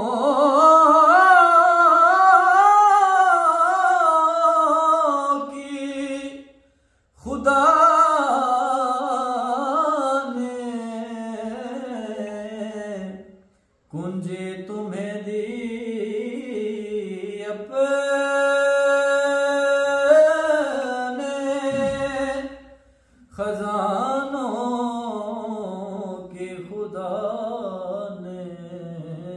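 A man singing a devotional Urdu kalam (naat) unaccompanied, in long ornamented phrases with a wavering pitch, three short pauses for breath between them. Past the middle he holds one note steady for a few seconds.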